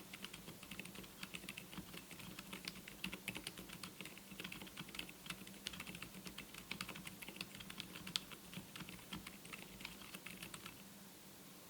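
Continuous fast typing on a MelGeek Mojo84 keyboard with TTC Frozen Silent switches: soft, muted keystrokes that stop shortly before the end.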